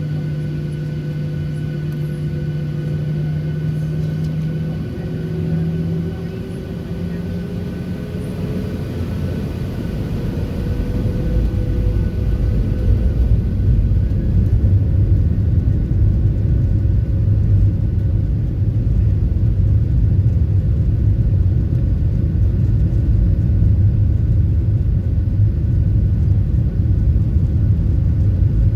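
Cabin sound of a Boeing 737-700's CFM56 jet engines spooling up for takeoff: a tone rises in pitch over several seconds as the sound grows louder, then settles into a loud, steady low rumble.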